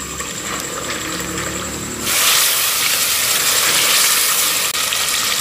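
Beef pasanday and masala sizzling in the pot on a high flame, the bhuna stage in which the leftover water is cooked off. The sizzle turns suddenly louder about two seconds in.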